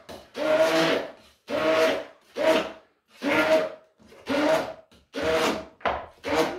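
Immersion blender in a stainless steel pot of smoked mackerel and cream cheese, run in short pulses: about eight bursts of motor whine, each under a second, with brief pauses between. It is pulsed rather than run continuously so the spread stays slightly chunky.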